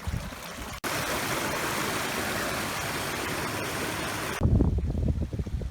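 Rushing water, a steady even hiss, that cuts in abruptly about a second in and stops abruptly about four and a half seconds in. Gusty wind buffeting the microphone follows.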